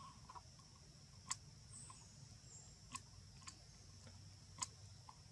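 Faint, steady, high-pitched insect drone, with four sharp clicks at irregular intervals of one to two seconds.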